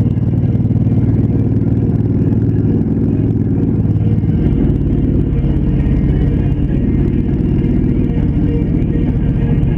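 Honda Shadow Spirit motorcycle's V-twin engine running steadily, with a change in its low note a little over four seconds in.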